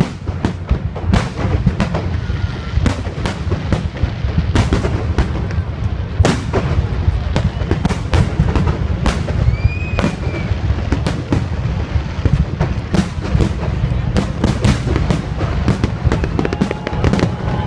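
Fireworks display: a dense, continuous run of sharp bangs and crackles, several a second, over a constant low rumble.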